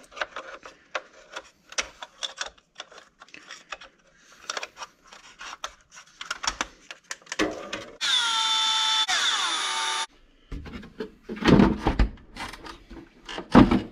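Small clicks of plastic parts being handled, then a cordless power screwdriver whirs for about two seconds, its pitch falling slightly before it stops suddenly. Heavier knocks follow near the end.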